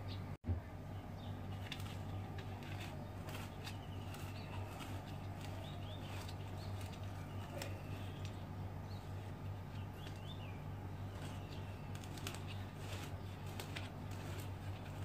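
Small birds chirping intermittently over a steady low hum, with scattered faint clicks. The sound cuts out for an instant near the start.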